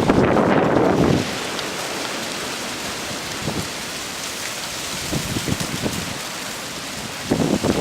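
Strong gusting wind, with a steady rushing hiss and a low buffeting rumble on the microphone during the first second and again near the end.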